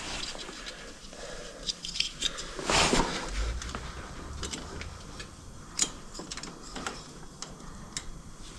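Scattered faint clicks and light knocks of handling, with a short rustle about three seconds in; no engine is heard.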